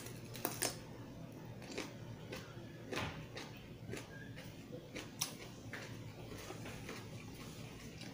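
Close-up chewing of raw cucumber: a bite at the start, then crisp crunches and clicks at irregular intervals, picked up by a clip-on microphone near the mouth.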